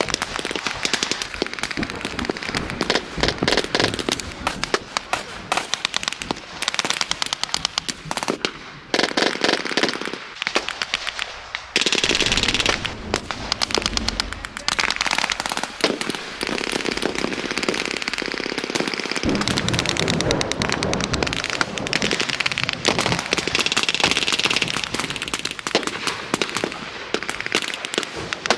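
Sustained battle-reenactment gunfire: rifles and machine guns firing blanks in a dense, continuous crackle of overlapping shots, with bursts of rapid fire.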